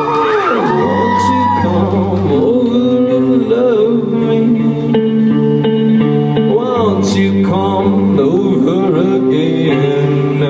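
Live band playing an instrumental passage between verses: electric guitar over sustained chords and a bass line, the melody gliding and wavering in pitch.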